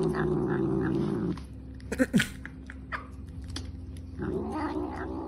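Domestic cat growling low and steady while it is brushed and keeps licking a treat from a tube, an annoyed growl that does not stop it eating. The growl breaks off after about a second, a short sharp sound comes about two seconds in, and the growl starts again near the end.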